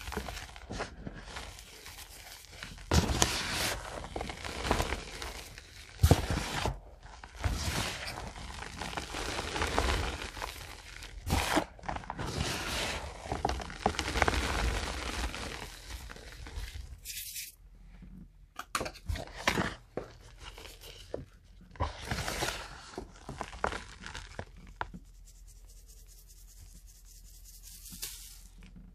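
Hands crushing and crumbling reformed gym chalk blocks: soft, powdery crunches in irregular bursts. The crunching is dense for the first half, thins out after about 17 seconds and goes quiet in the last few seconds.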